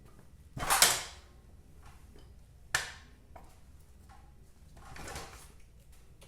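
Metal clatter and knocks from fitting and working a motorcycle centre stand: a half-second scraping clatter, a single sharp knock about two seconds later, then a softer scrape near the end.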